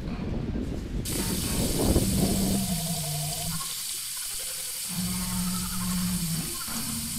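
Water from a tap pouring into a sink, a loud even hiss that starts abruptly about a second in. A low steady hum runs underneath throughout.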